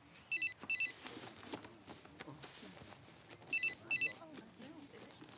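A phone ringing in a double-ring pattern: two pairs of short rings, about three seconds apart. Low murmuring voices are underneath.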